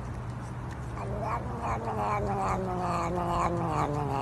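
Long-haired cat giving a long, wavering yowl while it chews on a finger. The yowl starts about a second in, its pitch slowly sinks, and it pulses about three times a second.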